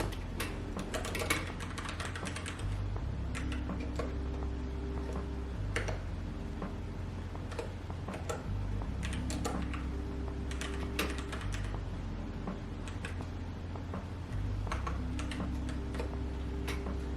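Typing on a keyboard: bursts of quick key clicks with pauses between them, over soft background music with slow, held low notes.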